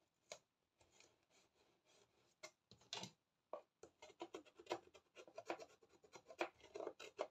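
Faint, irregular scratching and rubbing of a craft tool against thin paper card. It is a run of short scrapes and taps that gets busier after about two and a half seconds.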